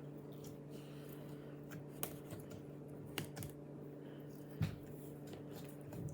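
A few light, sharp clicks and taps, irregularly spaced and the loudest a little past the middle, over a steady low hum.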